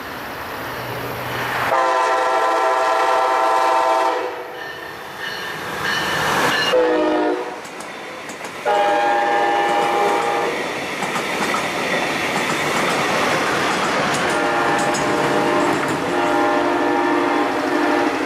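Brightline passenger train's horn blowing several long blasts and one short one as the train approaches and passes close by, followed by the rushing clatter of its cars rolling past on the rails; the horn sounds again near the end.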